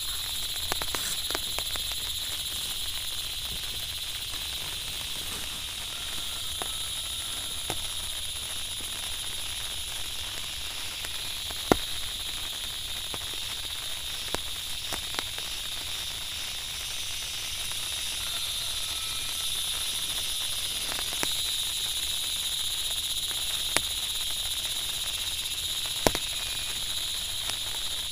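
A steady, high-pitched chorus of calling insects, with a few scattered sharp clicks and taps.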